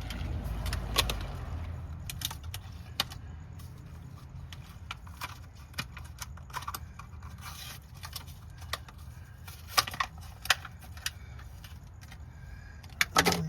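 Irregular small metallic clicks, clinks and rattles of hand work with tools and battery-cable wiring, over a low steady rumble. A cluster of sharper clicks comes near the end.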